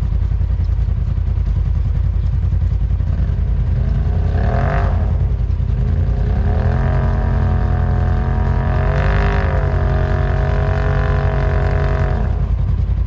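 Polaris RZR side-by-side engine running under a continuous low rumble. About four seconds in, the engine note rises. It is held steady under load with a brief rev around nine seconds, then drops away near the end.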